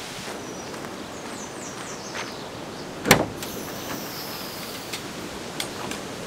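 Pickup truck tailgate being worked: one loud clunk about three seconds in, then a few lighter clicks and knocks, over a steady outdoor hiss.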